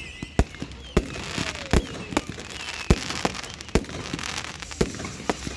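Fireworks going off: sharp bangs at irregular intervals, about two to three a second, over a steady crackle, with a faint whistle or two.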